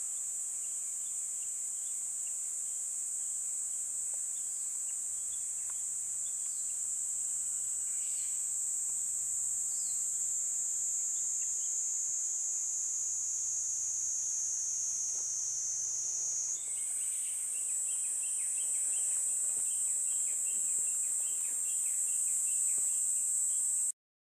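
Dense insect chorus, a steady high-pitched shrill that shifts a little higher about two-thirds of the way through, with faint repeated chirps over it; it cuts off suddenly near the end.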